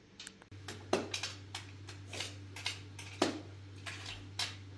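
Dishes and utensils handled in irregular light clicks and clinks, about ten in all, over a steady low hum.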